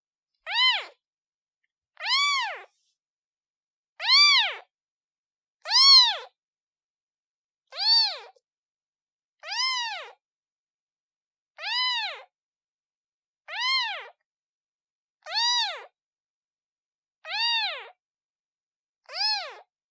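Newborn kitten meowing for its mother: a string of about eleven short, high calls, one every two seconds or so, each rising then falling in pitch.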